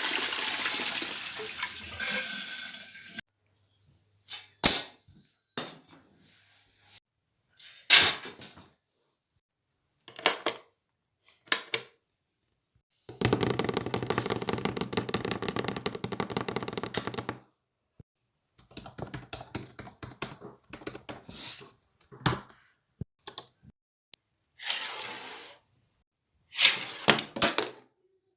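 A toilet flush rushing and fading out over the first three seconds, followed by a string of separate short sounds: sharp knocks and clicks, a dense rapid rattling lasting about four seconds, and more brief bursts of noise.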